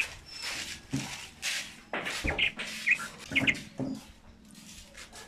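Splashing and dripping water as an opened sea urchin is rinsed in a basin of water and lifted out, in a string of short splashes. A few short bird chirps sound through the middle.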